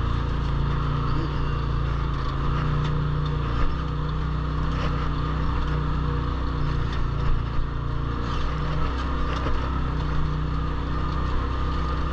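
Turbocharged Polaris RZR side-by-side running at a steady speed, its engine droning evenly, with scattered short knocks and rattles from the ride.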